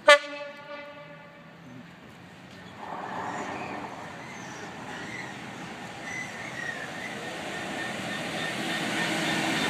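A short, loud train horn blast at the very start, then a Class 66 locomotive's two-stroke V12 diesel engine and the wheels of its freight train approaching and passing close by, the engine and rail noise building steadily louder from about three seconds in.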